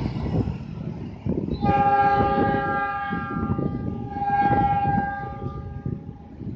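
Diesel locomotive horn sounding one long blast of several notes at once. It starts about a second and a half in, swells twice and fades near the end, over wind buffeting the microphone.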